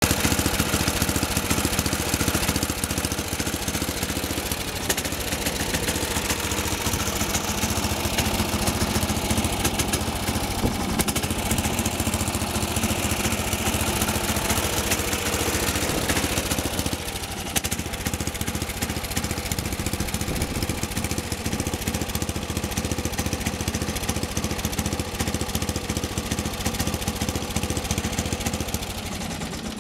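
Motec riding lawn tractor's petrol engine running steadily. About halfway through it becomes slightly quieter and the tone shifts a little.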